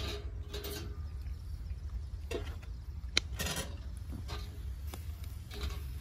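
Metal kebab skewers clinking and scraping against the grill grate as they are turned: a series of separate short clicks and scrapes, one of them a sharp click about three seconds in, over a low steady rumble.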